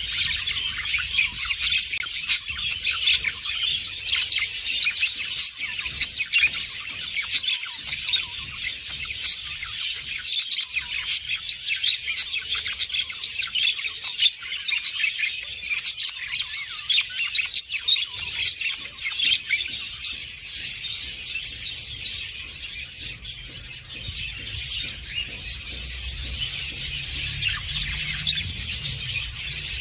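Budgerigars chattering and chirping, many birds at once in a dense, continuous warbling. The chatter thins out a little after about twenty seconds.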